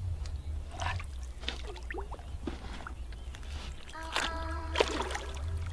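Water sloshing and splashing against the side of a small boat as a wels catfish is released over the gunwale, over a steady low rumble. A short voice sound comes near the end.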